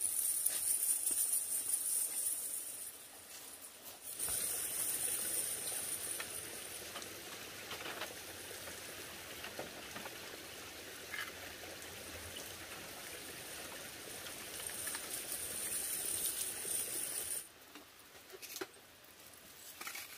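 Steady high hiss of outdoor ambience with a few faint knocks. It cuts off sharply near the end.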